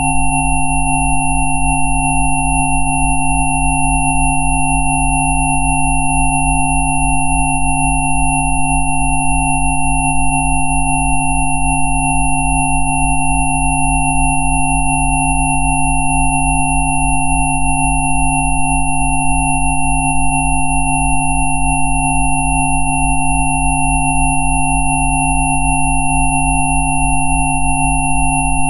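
Several synthesized sine tones sounding together and holding steady without change: a low hum that pulses a few times a second, mid-range tones, and thin high whines, played as a 'Rife frequency' track.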